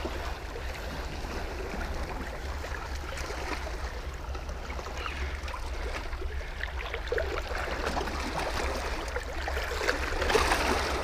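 Sea water lapping and washing against breakwater rocks, a steady watery wash with faint splashes, under a constant low rumble of wind on the microphone.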